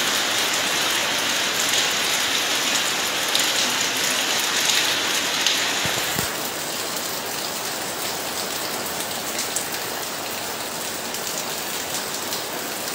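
Steady rain falling, a dense even hiss of drops that turns a little quieter about halfway through.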